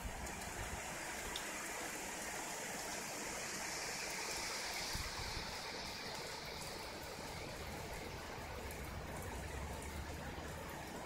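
Steady noise of thunderstorm rain and wind, swelling slightly around the middle, with a low rumble near the end.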